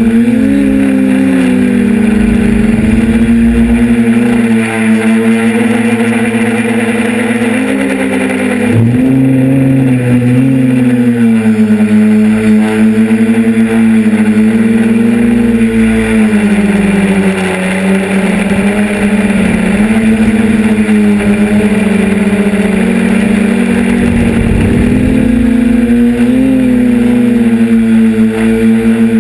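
Electric motors and propellers of a remote-controlled camera drone in flight: a loud, steady hum whose pitch wavers up and down as the throttle changes.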